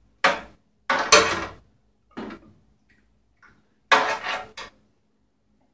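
A ladle clattering and scraping against a metal baking tray while tomato sauce is spread over its bottom, in four short clusters of knocks and scrapes.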